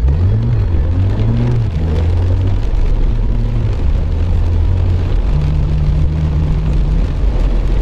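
Car driving in heavy rain, heard from inside: a low engine hum rises and falls in pitch in the first two seconds as it pulls away, then holds steady, over a constant hiss of wet tyres and rain on the car.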